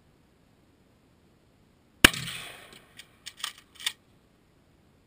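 A single shotgun slug shot about two seconds in, a sharp crack that dies away over about half a second, followed by a few short, sharp clicks and clatters about a second later.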